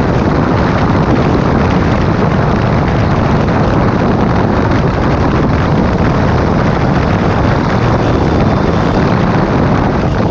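Sport motorcycle cruising at highway speed: heavy, steady wind rushing over the microphone, with the bike's engine and road noise running underneath.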